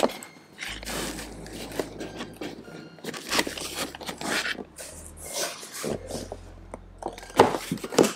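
Cardboard box and foam packing inserts rustling and scraping as they are handled, with a louder bump near the end.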